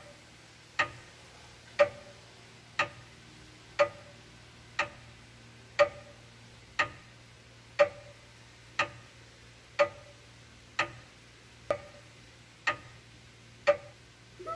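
A clock ticking evenly about once a second, fourteen ticks in all, over a faint steady hum.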